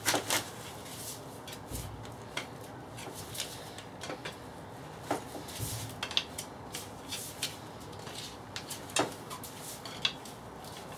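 Screwdriver levering at the end plate of a VW Passat gearbox casing to pry it off: scattered metal clinks and light scrapes. The sharpest clinks come at the start and about five and nine seconds in.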